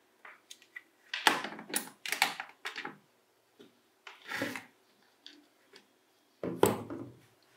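A series of short knocks and scrapes from hard objects being handled: a quick cluster of them, then two more spaced a couple of seconds apart.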